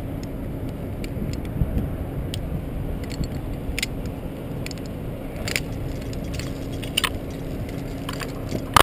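Heavy steel rigging chain clinking and rattling as it is handled around a tree trunk: a few separate metal clinks, the loudest near the end. A steady low engine drone runs underneath.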